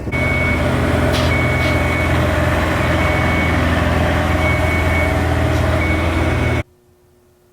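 Truck engine running close by while a reversing alarm beeps at intervals over it. The sound cuts off abruptly near the end.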